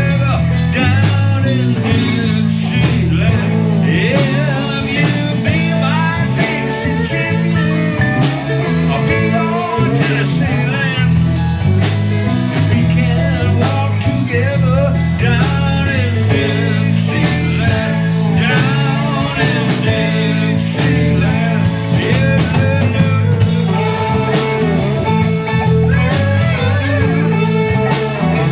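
Live bar band playing a bluesy rock number on electric guitars, bass guitar and drums, with a steady beat and a prominent bass line.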